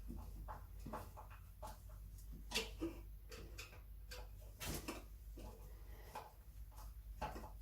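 Faint, irregular small clicks and taps of plastic and metal as a wall switch is handled and worked into its wall box, two sharper knocks standing out, over a steady low hum.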